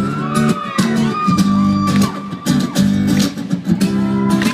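Live pop band music with strummed guitar chords in a steady rhythm, amplified, with no lyrics sung.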